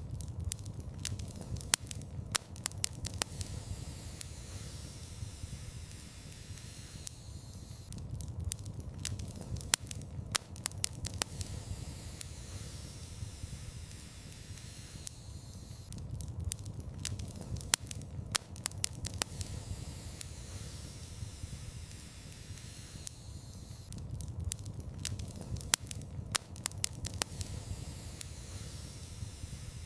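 Wood fire crackling in a fireplace: sharp pops and snaps over a steady low rumble and hiss, the crackles coming in clusters that repeat about every eight seconds.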